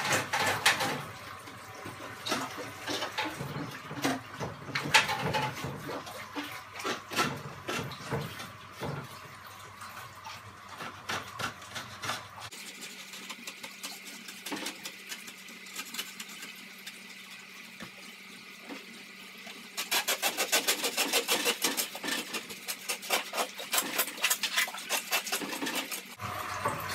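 Aquarium glass scraper scraping hard, crusty coralline algae off the inside of a reef tank's glass, with water splashing around the arm. The scratchy strokes come irregularly at first, ease off in the middle, then turn quick and steady near the end.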